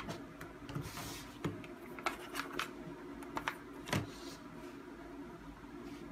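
Clear acrylic quilting ruler and rotary cutter being moved and set down on a cutting mat: a short rustle of fabric about a second in, then several light clicks and taps, the loudest about four seconds in, over a faint steady hum.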